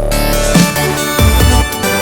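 Electronic music: sustained synth chords over a deep bass, with kick-drum hits about every half second.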